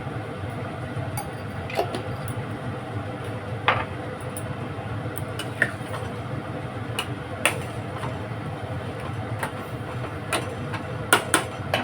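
Cooking sounds: scattered sharp clinks and taps of a utensil against a cooking pot over a steady low hum.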